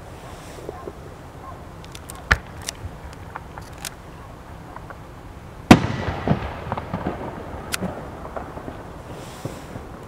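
Aerial fireworks shells bursting: a sharp bang about two seconds in, then a much louder boom a little past halfway that trails off over a couple of seconds with crackling, with scattered faint pops between.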